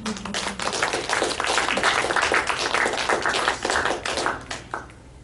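A small audience clapping: many separate hand claps that build quickly, then thin out and stop near the end.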